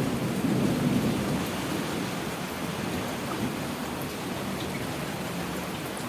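Heavy rain falling steadily, with a low rumble of thunder in the first second or so that then fades under the rain.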